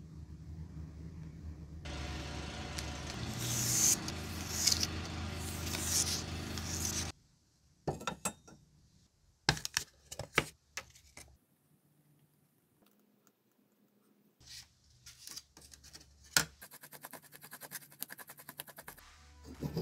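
Workbench handling sounds. A steady running noise with a few swishes is followed by crinkling and clicks as a plastic blister pack is handled, then a short quiet stretch. Near the end comes quick repeated scraping as a small stick mixes two-part epoxy on a paper card.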